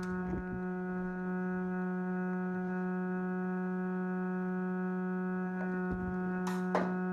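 A steady electrical buzz like mains hum, with a stack of overtones. Two sharp clicks come near the end.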